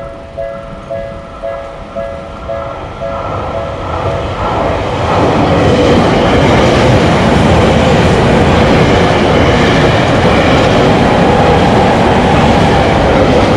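Japanese railroad crossing bell dinging in a steady two-tone beat, about twice a second, fading out after a few seconds under the noise of a train passing, which builds up and stays loud.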